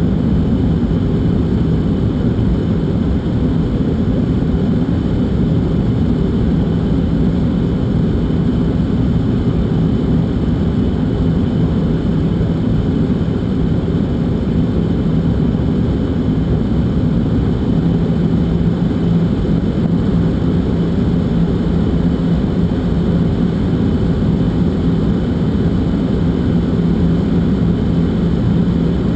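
Airliner cabin noise during the approach: a steady rumble of engines and rushing air, with a steady hum that grows stronger about two-thirds of the way through.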